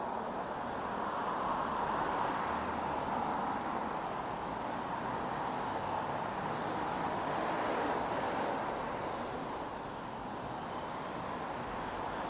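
Steady road traffic noise from cars on the street alongside, swelling and easing as vehicles pass, with the loudest swells about two and eight seconds in.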